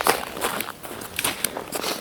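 Footsteps in snow, several steps in quick succession.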